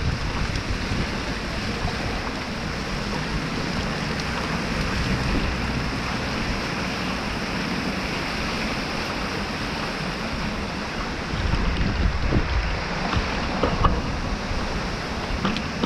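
Steady rushing noise of a tropical storm, with gusts of wind buffeting the microphone, strongest about two-thirds of the way in.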